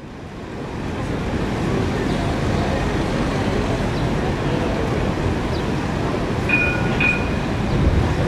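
Tram approaching along street rails at a busy stop, a steady low rumble that fades in over the first second or so, mixed with platform chatter. About six and a half seconds in, a short two-note ringing signal sounds twice in quick succession.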